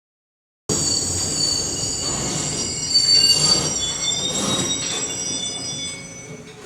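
Train wheels squealing against the rails, several high tones at once over a low rumble. It starts abruptly about a second in and fades out near the end.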